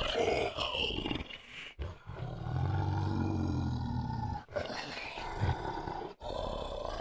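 Deep monster growls and roars for a werewolf, in four long stretches, each broken off by a brief silent gap. The lowest and steadiest one comes about two to four seconds in.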